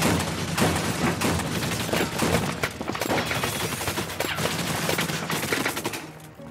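A long volley of automatic gunfire, many shots crowded together with bullet impacts, from a film soundtrack; it stops shortly before the end.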